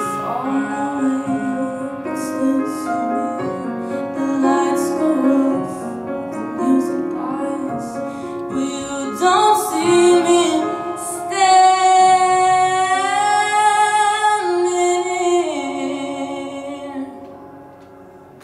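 A woman singing live with band accompaniment, ending a song: she holds one long high note through the middle, steps down to a lower note, and the music dies away near the end.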